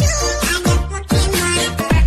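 Electronic dance music with a steady beat and a deep bass drum that drops in pitch on each beat.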